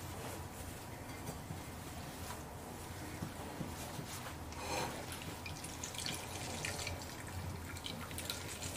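Cooked pear juice dripping and trickling as it is strained through a cloth bag, with a louder trickle about five seconds in.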